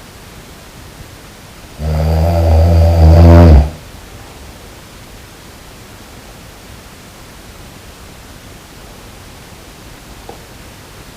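A person snoring: one loud snore of under two seconds about two seconds in, growing louder and cutting off sharply, over a steady hiss.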